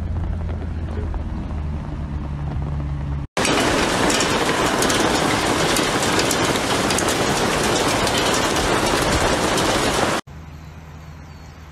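A low steady hum for the first three seconds, then a sudden cut to a loud, dense hiss of hailstones and rain pelting down, full of small hits. It cuts off abruptly near the end, leaving a quieter low hum.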